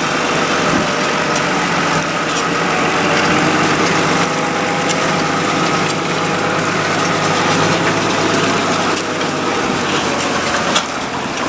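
Tractor engine running steadily as it pulls a plough across the field.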